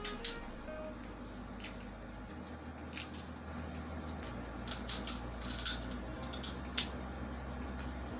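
Close-miked eating sounds: fingers picking through chicken sisig on a tray and wet, squishy chewing, with a cluster of sharp clicks and smacks about halfway through.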